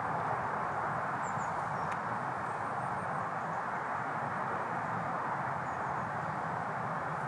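Steady, even rushing background noise, with a couple of faint high chirps about a second in and near six seconds.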